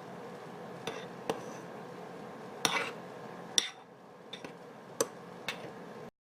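A spoon clinking and scraping against a dish as a creamy pie filling is mixed and scraped out: about seven light, separate clicks, the sound cutting off just before the end.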